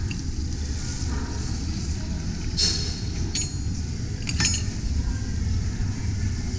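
Blood orange lemonade pouring from a drink dispenser's push-down tap into a cup of crushed ice, with a few clinks and clacks in the middle, over a steady low background rumble.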